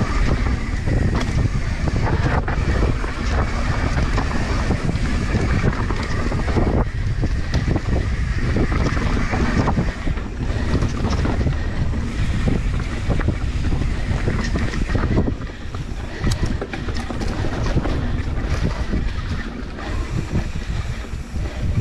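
Mountain bike descending a rough dirt trail: wind buffeting the camera microphone over a steady rumble, with many short knocks and rattles as the bike bounces over roots and bumps.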